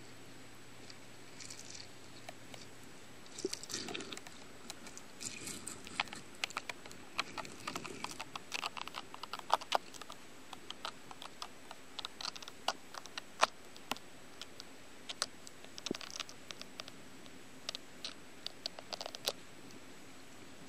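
Irregular clicks and crackles picked up underwater in a koi pond, scattered unevenly and coming thicker after the first few seconds, over a faint steady hum.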